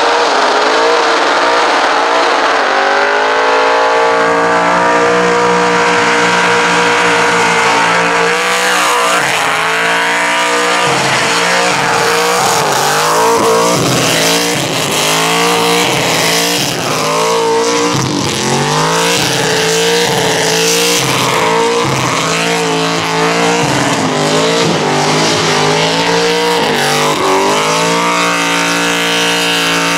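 LS1 5.7-litre V8 in a VP Commodore doing a burnout: the engine is held at high revs, dropping and surging again over and over, with the hiss and squeal of spinning rear tyres.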